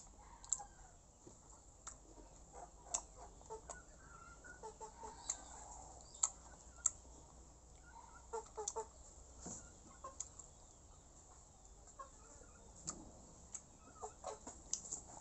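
Chickens clucking now and then in short calls, some in quick pairs, with scattered sharp clicks from close-up chewing of small hard green fruit.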